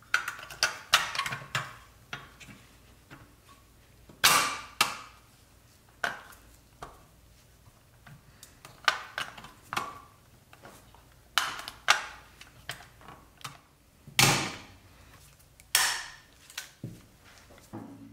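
Hands fitting parts onto a restored pressed-steel toy car: scattered clicks, taps and knocks as pieces are pressed and seated, with a few longer scraping sounds.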